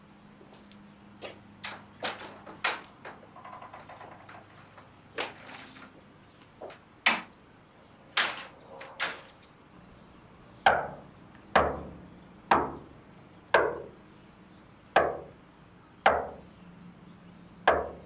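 Hard-soled footsteps tap irregularly on a concrete path. Then, about ten seconds in, a fist knocks slowly and heavily on a panelled wooden front door: seven booming knocks about a second apart, each ringing briefly.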